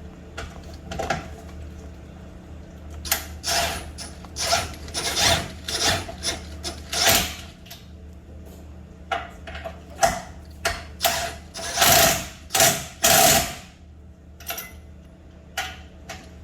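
Snap-on impact wrench hammering in a string of short bursts, about a dozen in all with a pause about two-thirds of the way through, working a bolt on the car's front suspension until it comes off.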